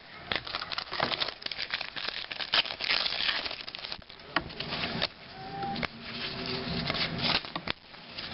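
Trading-card pack wrappers crinkling and cards rustling as they are handled: a continuous run of small crackles and rustles.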